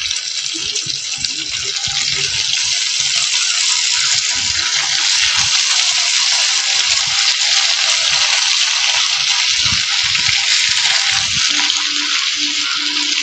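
Idli pieces deep-frying in hot oil: a loud, dense, steady sizzle with many tiny crackling pops, growing fuller a couple of seconds in.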